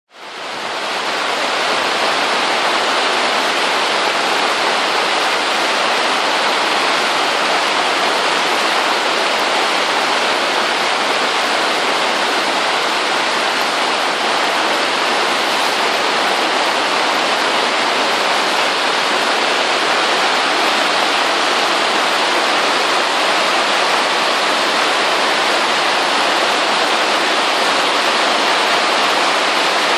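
Steady rain falling on the plastic sheeting of a polytunnel, a dense even hiss with no separate drops standing out. It fades in over the first second or two, then holds steady.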